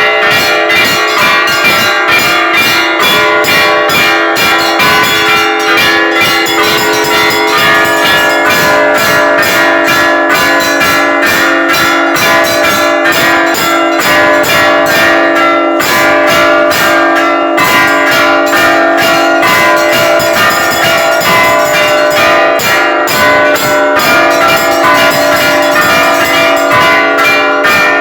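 Church bells ringing: several bells struck in quick succession over a steady, sustained hum from a larger bell.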